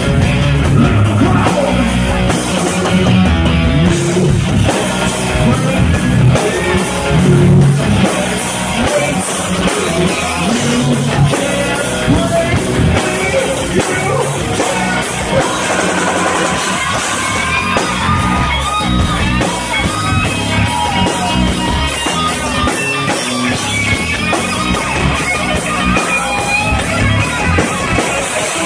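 Live rock band playing loud: electric guitar, bass guitar and drum kit, with a singer's vocals over it, partly shouted.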